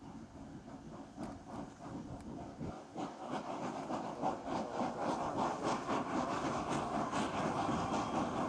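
Small saddle-tank steam locomotive working hard as it hauls a goods train, its exhaust chuffing in rapid beats. It grows louder about three seconds in.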